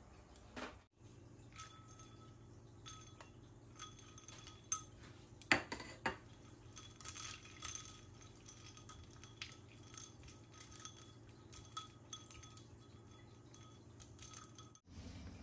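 Ice cubes clinking against a glass bowl as thin boiled pork slices are stirred in ice water with chopsticks: scattered light taps and glassy clinks, the loudest cluster a little before the middle. A faint steady hum lies underneath.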